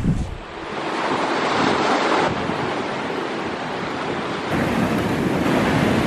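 Sea surf washing over a rocky shore ledge, with wind buffeting the microphone.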